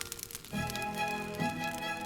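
Cartoon background music: a light orchestral cue of held, pitched notes that starts again about half a second in.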